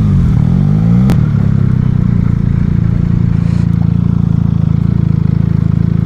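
Benelli motorcycle engine winding down as the bike slows, with a sharp click about a second in, then idling steadily with an even pulsing beat.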